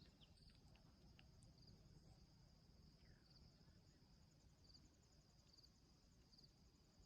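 Near silence: faint cricket chirps, short trills repeating every second or so, over low outdoor background rumble.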